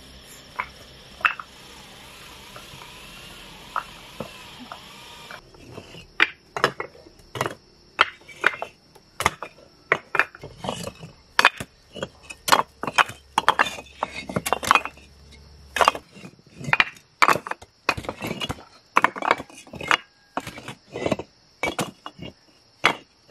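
A series of sharp knocks and clinks of hard objects striking, about two a second, after a few scattered taps in the first five seconds.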